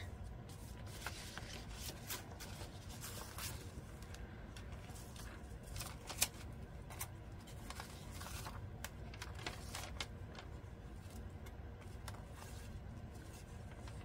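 Paper rustling and light ticks as the pages of a journal signature made from old book pages are handled and turned, with one sharper tick about six seconds in.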